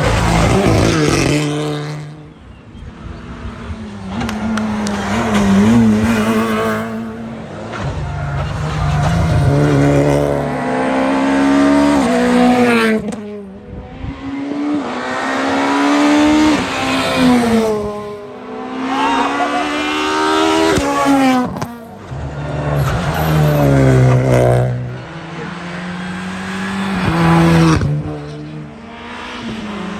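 Rally cars on a special stage, one after another: engines revving high through the gears and dropping as they lift off, with some tyre squeal, in short segments that cut suddenly from one car to the next.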